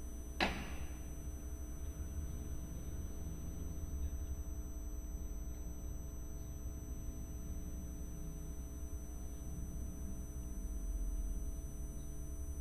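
Steady low electrical hum with faint steady tones over it, and one short click about half a second in.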